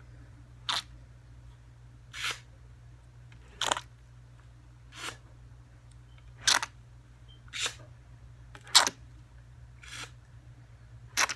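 A short, sharp, scratchy stroke repeated about every second and a half, nine times in all, over a faint low hum.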